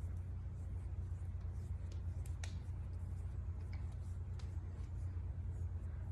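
Fingers rubbing face cream into skin, giving a few faint soft clicks and light rubbing over a steady low hum.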